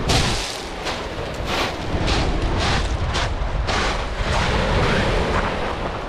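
Footsteps crunching on shingle pebbles, about two a second, under heavy wind buffeting the microphone.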